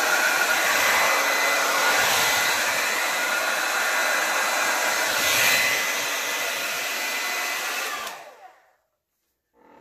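Hand-held hair dryer running steadily on high, blowing air across wet paint. It is switched off about eight seconds in and winds down to silence.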